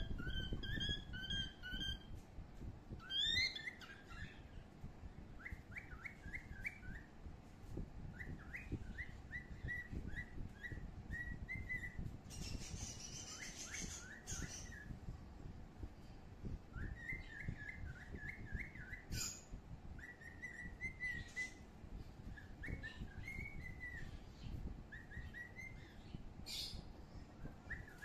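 High bird chirps in short runs of quick notes, repeating over and over, with a low rumble underneath.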